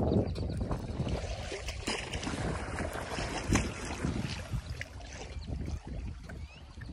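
Gusty wind rumbling on the microphone, with water moving against the shore.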